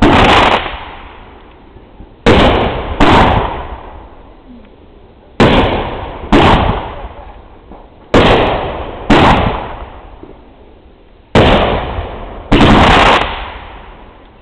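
Fireworks exploding: nine loud bangs, mostly in pairs a half-second to a second apart, with a new pair every two to three seconds. Each bang dies away in a rolling echo over a second or two.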